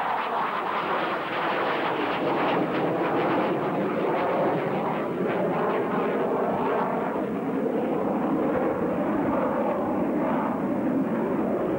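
A-4 Skyhawk jet flying overhead, the steady noise of its J52 turbojet filling the air and deepening in pitch over the later seconds as it passes.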